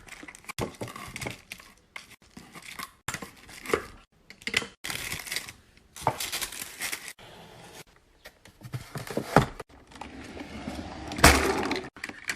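Choppy, quickly cut handling noises of packaging and containers: plastic crinkling and tearing, with short knocks and clinks. A louder clatter comes near the end.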